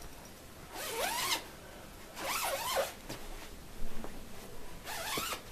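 Sleeping bag's zipper being pulled closed in three strokes, each a short rasping zip with a rising and falling pitch.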